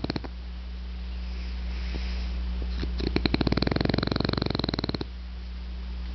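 French bulldog snoring in its sleep. A fast fluttering snore ends just after the start, then comes a softer breath, then a second fluttering snore of about two seconds begins about three seconds in.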